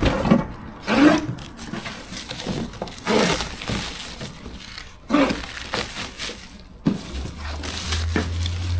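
Cardboard box and packaging being handled and opened: a series of separate rustles and crunches. A low steady rumble comes in near the end.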